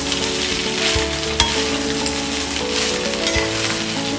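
A metal spatula stirring and scraping soaked poha (flattened rice) around a hot kadai, with the mixture frying, and a few light clinks. Soft background music with long held notes plays underneath.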